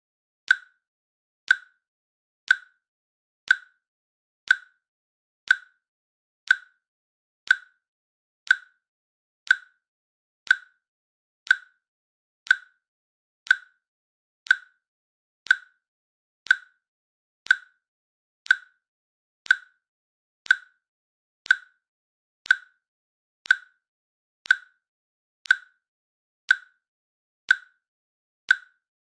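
A countdown timer's click, sounding once each second in an even rhythm: short, sharp clicks with silence between them.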